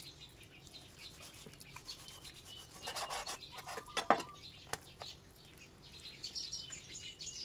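Chef's knife slicing through raw pork hip on a wooden cutting board: faint rubbing and scraping of the blade through the meat, with a sharper knock of the knife on the board about four seconds in.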